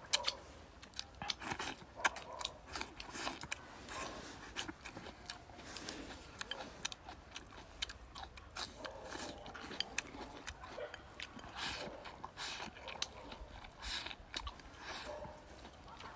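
Food being chewed: irregular soft mouth clicks and bites one after another.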